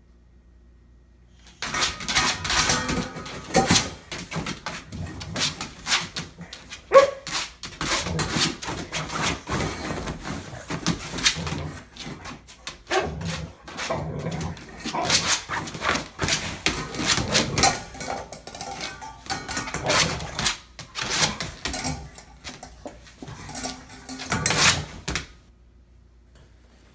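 Boxer dog in a tantrum, digging and pawing frantically at its bedding and the tray of a wire crate: a long irregular run of scratching, scraping and rattling that starts about a second and a half in and stops abruptly near the end, with a couple of short whimpers.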